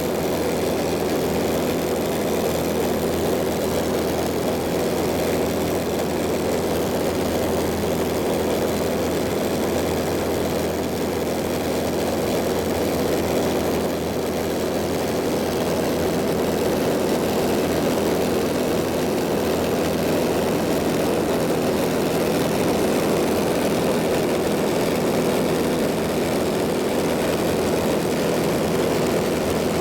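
Steady drone of a light propeller airplane's piston engine, heard from inside the cabin in level flight.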